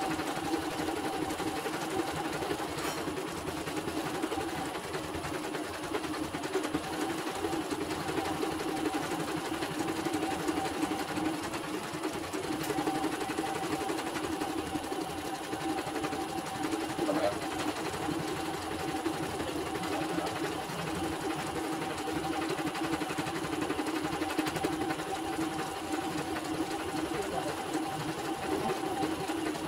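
CNY portable embroidery machine stitching a design: a steady, fast run of needle strokes with a constant mechanical hum as the hoop steps the fabric under the needle.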